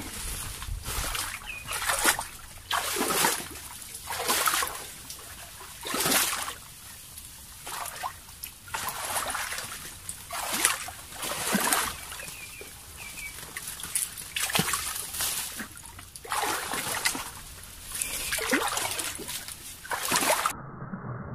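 Someone wading through shallow water in a mangrove swamp, splashing and sloshing in irregular strokes about once a second while feeling for mangrove clams with the feet.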